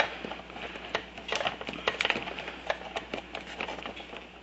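Irregular small clicks and taps of a speedometer cable end being worked by hand into its socket on the back of a Kymco Super 9 scooter's instrument cluster, over a steady hiss.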